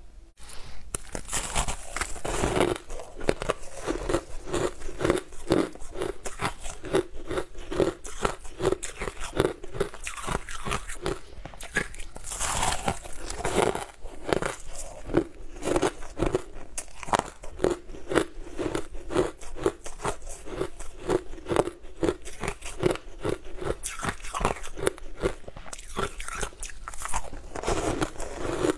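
Close-miked crunching and chewing of chunks of frosty blue ice, one bite after another, at about two crisp crunches a second.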